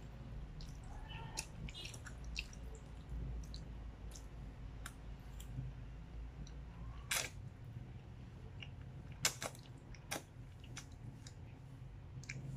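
Close mouth sounds of someone eating creamy fettuccine carbonara: wet chewing and slurping of pasta, with scattered sharp smacks, the loudest about seven, nine and ten seconds in, over a steady low hum.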